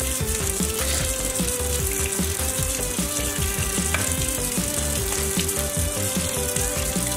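Kitchen faucet running, its stream splashing onto a wet puppy in the sink, under background music with a steady beat.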